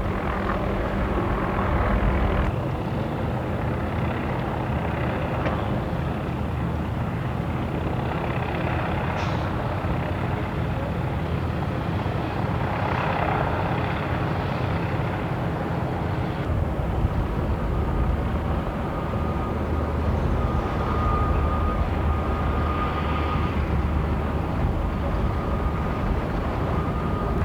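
Helicopter engine and rotor noise, a steady drone with no break.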